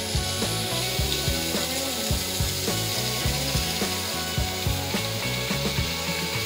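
Background music with a steady beat, about two beats a second, over a bass line that changes note in steps.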